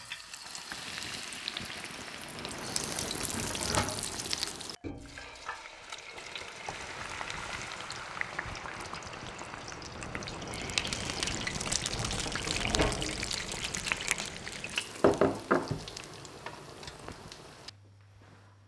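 Sizzling and crackling in a small saucepan on the stove as ingredients are tipped into the hot liquid, with a dense run of pops and a few louder pops near the end. It stops abruptly a second before the end, leaving only a faint hum.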